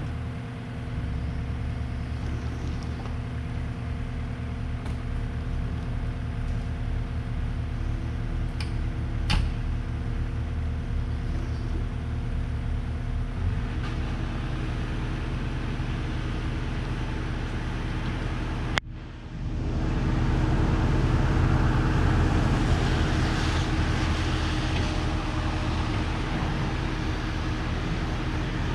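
Heavy-equipment diesel engine running steadily, close and loud. A brief dropout about two-thirds through, then it runs louder.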